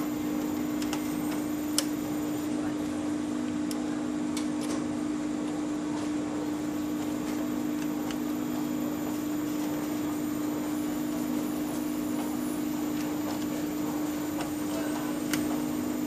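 Steady electrical hum with a fan-like rush from a washing machine's control cabinet, holding two low tones at an even level. A few sharp clicks, like a tool tapping metal, come through near the start and near the end.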